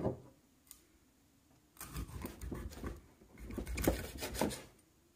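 Kitchen knife cutting through a whole raw fish on a cutting board, in two bouts of rasping sawing strokes.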